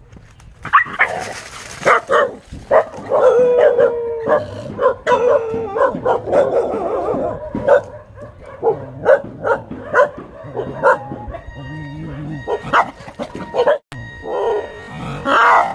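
A dog barking and yelping over and over in short, sharp calls, with a longer drawn-out whine about three to four seconds in.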